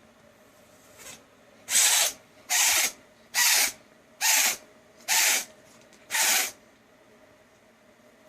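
Adult cat sneezing in a rapid fit: six sharp, hissy sneezes about one a second, with a faint one just before. The uploader links the sneezing to a cold or upper respiratory infection.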